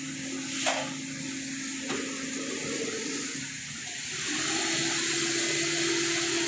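Car-wash equipment running: a steady rushing, water-like hiss with a machine hum under it that steps up in pitch and gets louder about four seconds in. A sharp click sounds just under a second in.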